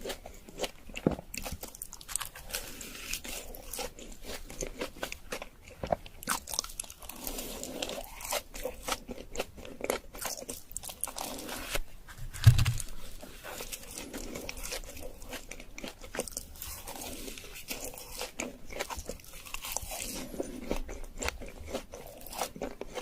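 A person biting and chewing glazed donuts with jam and Nutella, with many small wet clicks and crackles. About halfway through there is one low, loud thump.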